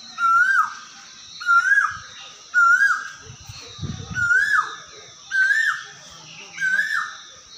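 An animal's high-pitched call repeated six times, about once a second, each call rising and then dropping away sharply.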